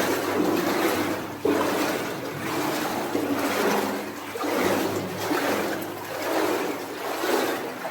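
Water sloshing and splashing around legs wading through a flooded mine passage, swelling with each stride about once a second.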